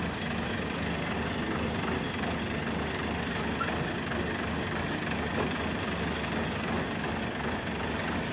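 Rice combine harvester's engine running steadily at a constant speed, an even mechanical drone with a low hum.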